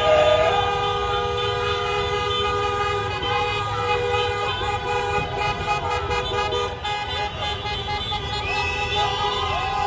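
Several car horns honking at once, some held long and overlapping, over traffic rumble, with people shouting and cheering near the start and again near the end.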